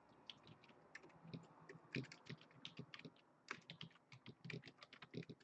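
Faint typing on a computer keyboard: quick, irregular key clicks.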